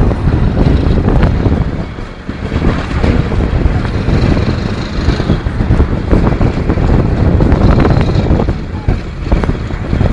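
Vehicle road rumble with wind buffeting the microphone, a loud, uneven low rumble that dips briefly about two seconds in.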